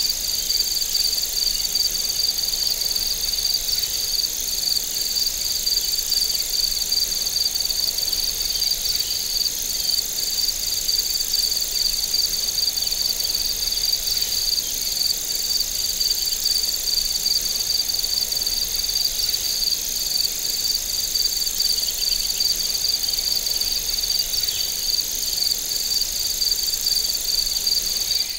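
Chorus of singing insects: a steady, high-pitched trilling, with a rapidly pulsing trill layered under an even higher continuous one, going on without a break.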